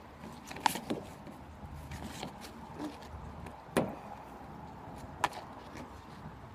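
A metal utensil stirring a thick slime mixture in a plastic tub, with a few sharp clicks as it knocks against the container. The loudest click comes in the middle, with smaller ones near the start and later on.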